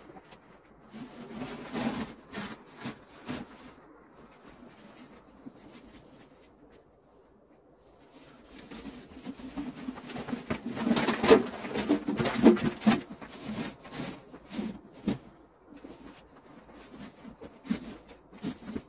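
Footsteps crunching in snow and a plastic snow pusher being handled and shoved through packed snow, with irregular crunches and knocks that are busiest and loudest about halfway through.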